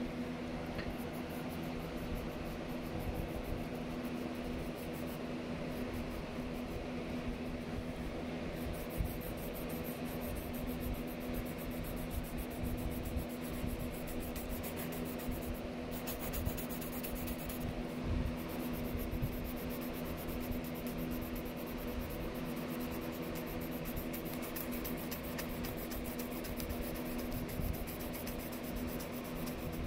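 Steady mechanical hum holding a few constant low notes, with light pencil strokes on sketchbook paper.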